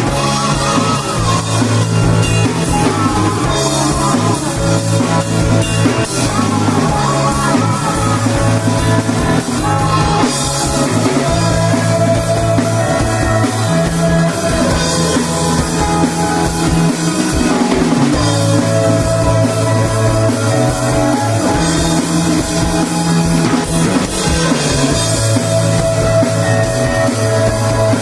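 Rock band playing live with no vocals: a drum kit keeping time under sustained bass notes that change every few seconds, with guitars on top.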